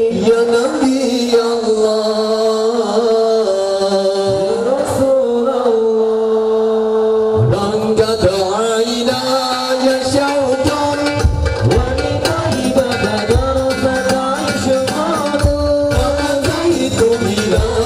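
Sholawat, Islamic devotional singing, with long held sung notes. About seven seconds in, hand-beaten rebana frame drums join in a steady rhythm, with deep drum strokes added a few seconds later.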